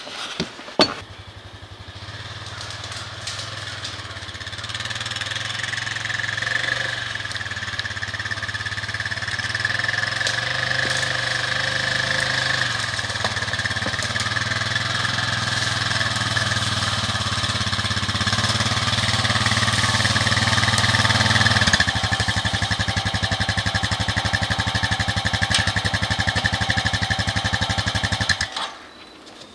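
A vehicle engine running steadily, starting about a second in and slowly getting louder. About 22 seconds in its sound changes to a more even pulse, and it cuts off shortly before the end.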